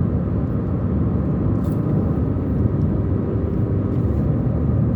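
A car being driven: steady engine and tyre road noise, mostly low rumble.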